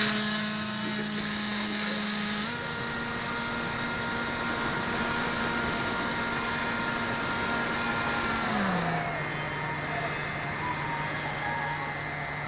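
Electric motor and propeller of a radio-controlled plane in flight, a steady whine that steps up slightly a couple of seconds in, then glides down to a lower steady pitch about nine seconds in.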